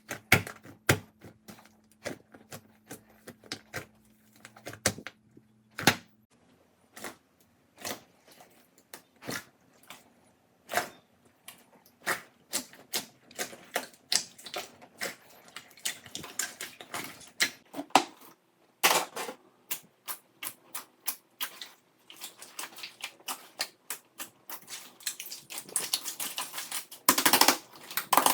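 Slime being pressed, poked and squeezed by hand, making sharp irregular clicks and pops, with denser crackling about two-thirds through and again near the end.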